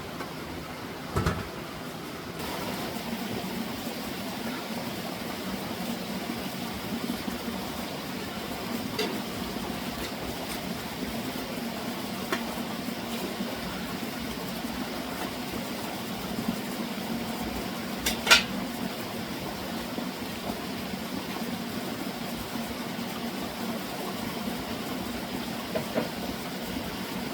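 A steady low hum over a noisy background, broken by a few scattered sharp clinks and knocks; the loudest knock comes about two-thirds of the way through.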